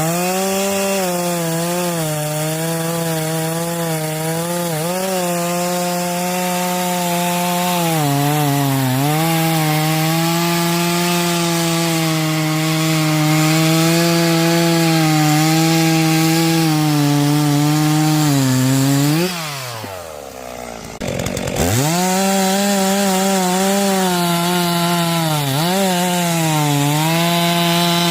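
Stihl two-stroke chainsaw cutting through wood under load, the engine pitch dipping each time the chain bites harder. Near the end of the cut the engine revs up sharply and drops away, and about two seconds later a saw revs up and cuts again.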